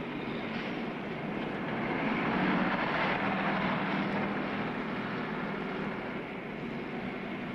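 Street traffic noise, a steady hum of engines and tyres with a low engine drone that swells slightly a few seconds in.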